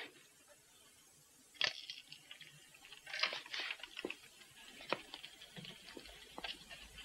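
A sharp click about a second and a half in, from a press camera firing its flashbulb, then scattered faint clicks and knocks from people moving about.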